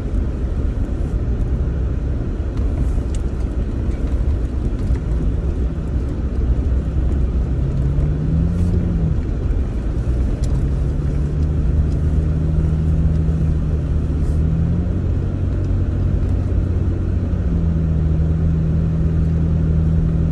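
Vehicle engine and road rumble heard from inside the cab while driving on a dirt trail. The engine note steps up and down a few times as speed changes, with a few faint ticks from gravel or rattles.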